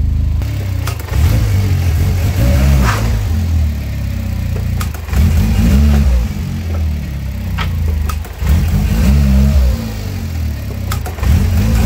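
Turbocharged K11 Nissan Micra engine revved hard in about four short bursts as the car is lurched forward from a standstill, with a few sharp knocks between them. These are sudden launches to test how much the engine moves on its new polyurethane engine mounts.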